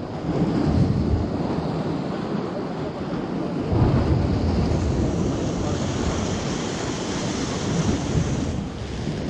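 Sea waves breaking and washing over rocks, with wind rumbling on the microphone; the roar surges about half a second in and again near four seconds in, and a brighter hiss of wash comes in about midway.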